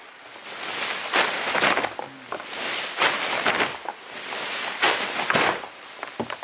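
Wet tent fabric rustling and swishing as it is bunched up and pulled together by hand for packing, in a series of loud swishes about one every second or so.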